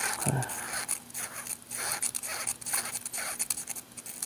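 Fine 600-grit sandpaper rasping in quick repeated strokes, about two to three a second, as it is turned by hand around the flat ring of a small .22 magazine-tube part. It is lightly smoothing off the manufacturing burrs that were catching in the tube and causing the feeding jams.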